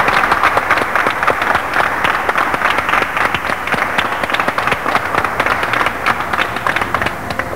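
Applause: many hands clapping together in a dense patter that eases off near the end.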